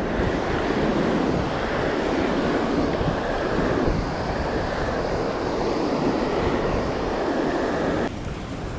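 Steady rushing noise of wind and river water, which drops off suddenly near the end.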